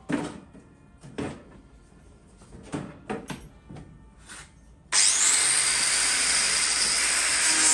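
A few short knocks and clanks of metal being handled, then, about five seconds in, an angle grinder suddenly starts grinding steadily, stripping paint from sheet metal.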